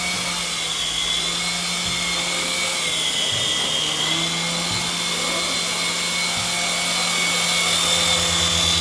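Syma S109G toy RC helicopter's electric motors and coaxial rotors whirring steadily in flight, a high whine that wavers slightly in pitch.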